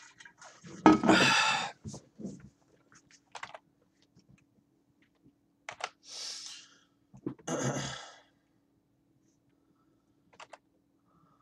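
Clicks and taps on a computer keyboard and mouse, with a few louder bursts of rustling noise, the loudest about a second in, over a faint steady hum.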